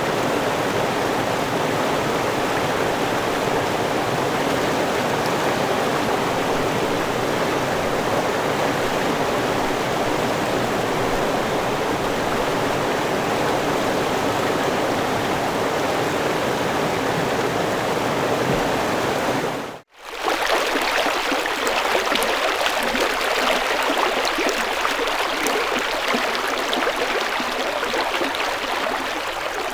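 River water flowing and splashing in a steady rush. About two-thirds of the way through it cuts out for a moment, and a second river recording takes over, lighter and hissier with less low rumble.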